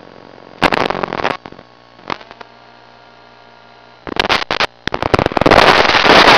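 Radio static on a 900 MHz FPV video downlink's audio channel: a steady hum broken by crackling bursts about half a second in, at about two seconds and around four seconds, then loud continuous hissing static from about five seconds on. The crackling and hiss are the video signal breaking up.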